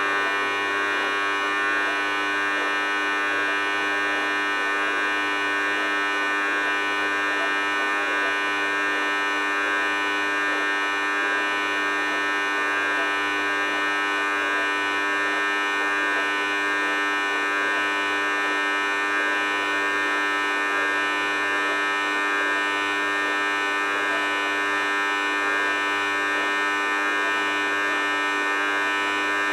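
Thor WP5G benchtop dishwasher making a steady, unbroken buzzing hum of many tones, the terrible noise it gives for about three minutes of every cycle; the owner does not know the cause.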